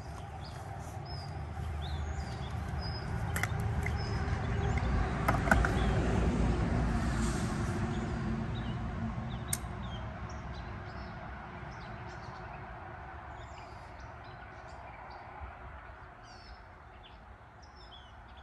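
Birds chirping over a low rushing rumble that swells over the first several seconds and then slowly fades.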